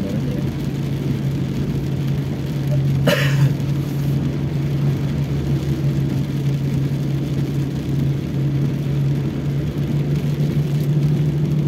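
Cabin drone of a Toyota Rush driving on a wet road in heavy rain: a steady engine and tyre hum. A brief swish comes about three seconds in.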